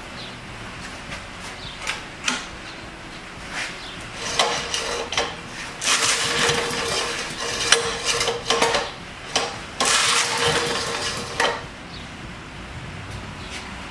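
Old Briggs & Stratton engine on a concrete power trowel being tried after a rich carburettor setting, sputtering in three short bursts, about four, six and ten seconds in, each with metallic rattling and clattering.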